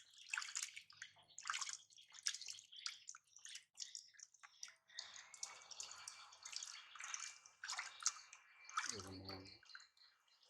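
Water splashing and dripping in quick, irregular bursts as a baby is showered with warm water. About nine seconds in, a brief low voice is heard.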